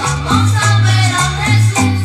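Intro music with a prominent bass line stepping from note to note every half second or so.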